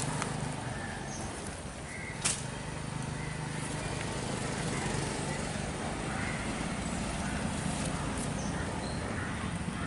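Quiet outdoor ambience: a steady low hum with a few faint short bird chirps, and one sharp click a little over two seconds in.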